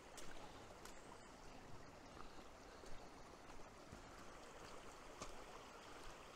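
Faint, steady rush of a moorland stream running over stones, with a few short clicks.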